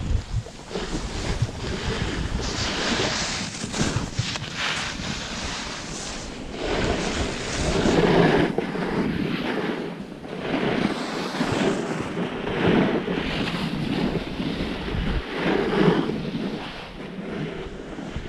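Wind buffeting the microphone and a snowboard scraping over packed piste snow, the rushing noise swelling and fading every few seconds as the board turns.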